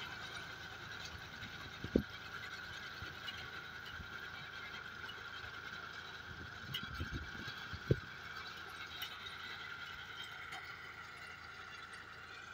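Tractor running and pulling a lentil-cutting machine through a field, a steady mechanical sound with a high whine through it, growing slightly fainter near the end as it moves away. A few short low thumps, about two seconds in and again around seven to eight seconds, are wind on the microphone.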